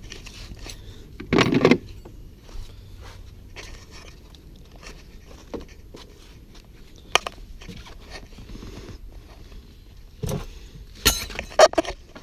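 Hand tools clinking and scraping as a wrench works on the seat mounting bolts, with scattered sharp clicks and a few louder knocks, one about a second and a half in and a cluster near the end.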